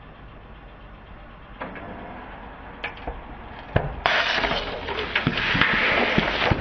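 A car tyre rolls over aluminium drink cans under a low engine rumble. A few sharp cracks come first, then from about four seconds in a loud spraying hiss with crackling as the cans burst and their drink sprays out under pressure.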